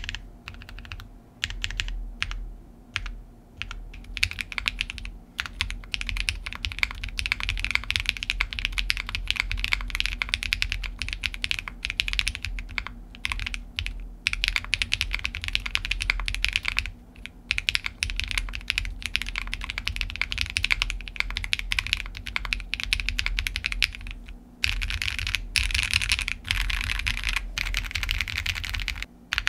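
Typing on a Space65 R3 gasket-mount 65% custom mechanical keyboard fitted with stock, unlubed Red Jacket switches: a fast, continuous run of crisp keystroke clacks with a few brief pauses.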